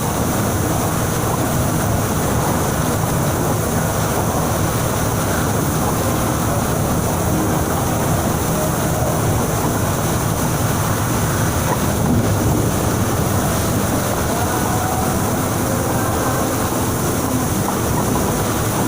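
Transjakarta bus driving through heavy rain and strong wind: a steady drone of engine and tyres under a constant hiss of rain and wind.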